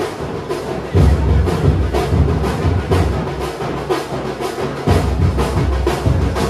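Rhythmic drum music: fast, even beats, about three or four a second, over heavy low booms.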